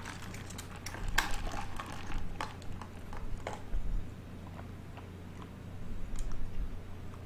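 Close-miked eating: chewing in a few soft bouts, with scattered small clicks.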